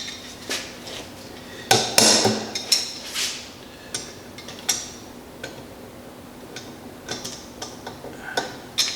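Pliers and small steel parts clicking and clinking against each other in irregular light metallic taps, some with a short ring, as a pin and cotter pin are worked by hand.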